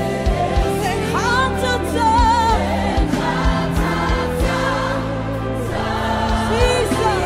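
A choir singing a gospel hymn over sustained low accompaniment notes and a regular beat, with a wavering lead voice rising above it about a second in.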